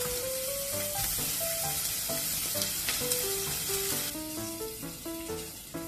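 Sliced Vienna sausages sizzling in a frying pan in bacon fat, a steady frying hiss. Background music with a melody plays over it.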